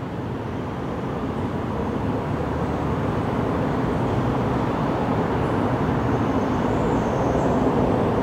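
Distant road traffic: a steady low rumble that slowly grows louder.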